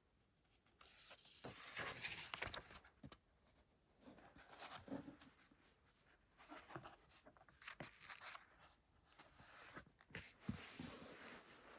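Faint rustling of paper and card being handled, with light taps and clicks, in several bursts separated by short pauses.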